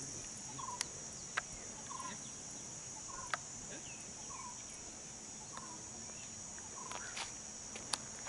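Short bird calls repeating roughly once a second over a steady high buzz of insects, with a few sharp clicks.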